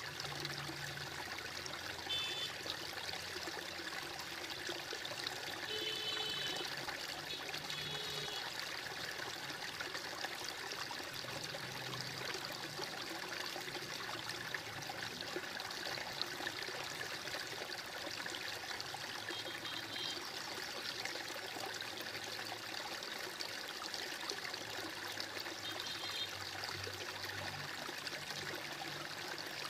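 Water trickling and babbling steadily in a shallow stream, with a few short high chirps over it.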